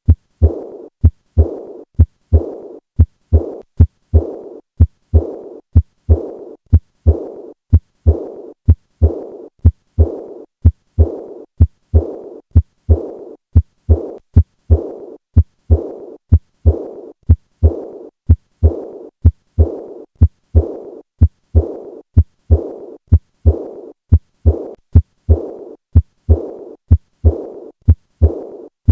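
Heart sounds heard through a stethoscope at the fourth left intercostal space, beating regularly a little over once a second. Each sharp heart sound is followed by a fading blowing murmur, the decrescendo diastolic murmur of acute aortic regurgitation.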